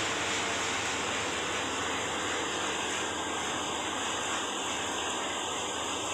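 Truck-mounted concrete boom pump and ready-mix mixer truck running while concrete is pumped. It is a steady, even machinery drone with no distinct beats.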